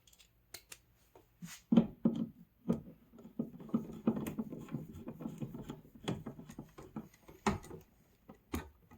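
Clicks, scraping and rattling of a screwdriver and a single-pole light switch as the switch is unscrewed and pulled out of its plastic wall box. It is busiest from about two seconds in to near the end, with sharp clicks at the start and end of that stretch.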